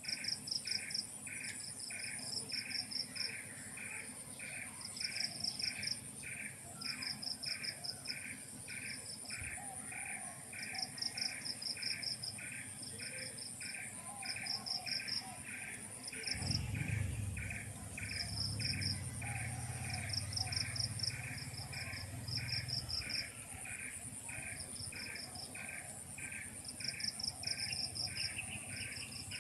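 A chorus of insects such as crickets: a continuous high trill, a regular chirp about one and a half times a second, and irregular bursts of quicker, higher chirps. A low rumble comes in about halfway through and lasts around six seconds.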